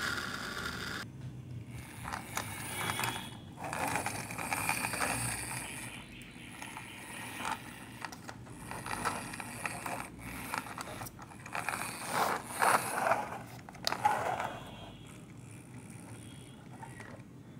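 A small plastic toy car being handled and turned about, its wheels and gearing clicking and scraping in irregular bursts.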